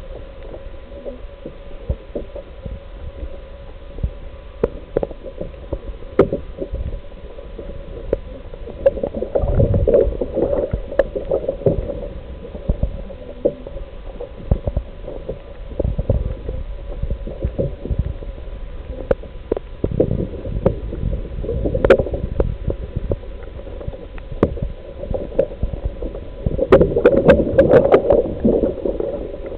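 Muffled water sloshing and gurgling with scattered clicks and knocks, in swells that come and go, over a steady hum.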